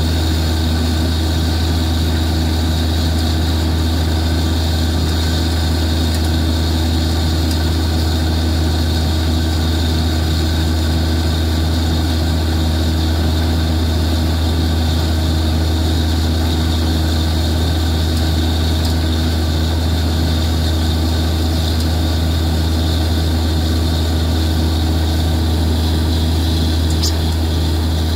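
Borewell drilling rig running steadily while drilling: a loud, constant low engine drone with a steady hiss over it as water and rock cuttings are blown up out of the bore.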